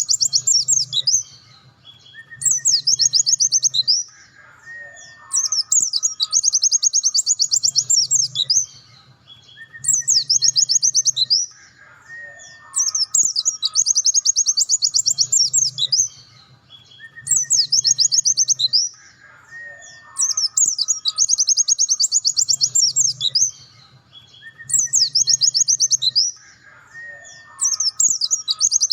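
Pleci (white-eye) singing its full 'nembak' song: rapid, high-pitched trilled bursts of one to three seconds, repeating after short pauses, with fainter lower whistled notes between them.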